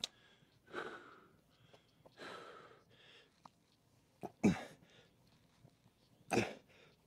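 A man's sharp, forceful breaths, four of them about two seconds apart, one with each rep of a set of heavy dumbbell lateral raises; the one about halfway through is the loudest. A few faint clicks fall between them.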